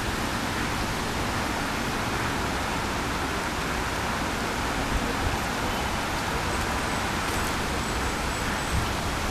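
Steady hiss with an unsteady low rumble: wind on the camera microphone.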